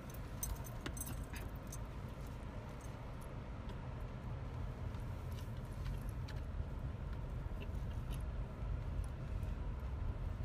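Car interior noise: a steady low rumble of the car running, with keys on the key ring hanging from the steering column jingling in short clinks, most often in the first couple of seconds.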